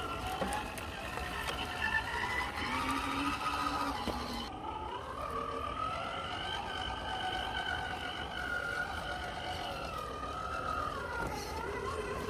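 Whine of a 1/10 scale Element RC Enduro crawler's Hobbywing Fusion 1800kv brushless motor and geared drivetrain as it crawls slowly, the pitch rising and falling with the throttle.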